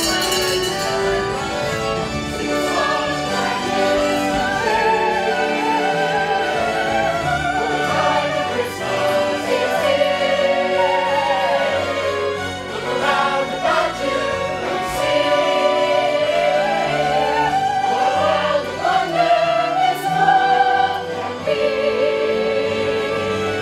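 A stage musical's cast singing together as a chorus, several voices holding and moving through sung lines over musical backing.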